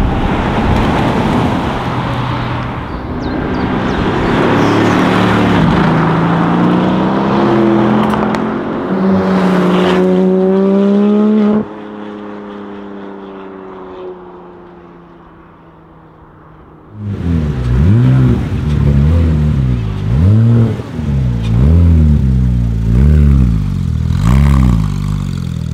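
A car accelerating hard, engine pitch climbing through gear changes, cut off abruptly; then a quieter stretch as a car pulls away. About 17 seconds in, a Porsche 991 GT3 RS's 4.0-litre flat-six with an iPE exhaust is revved repeatedly at standstill, sharp blips about one a second, each rising and falling quickly.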